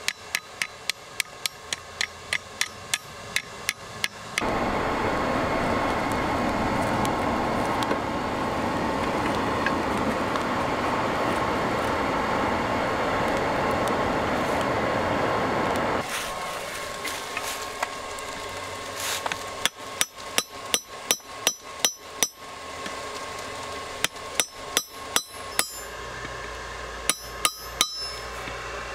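Hand hammer striking a steel bar on a railroad-rail anvil, about three ringing blows a second. About four seconds in this gives way to a steady rush of the brick forge's hair-dryer blower and fire for about twelve seconds, after which the hammer blows come back in quick runs.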